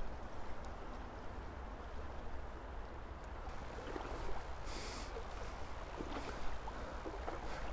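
Shallow river water running: a steady rush with a low rumble, and a brief soft hiss about five seconds in.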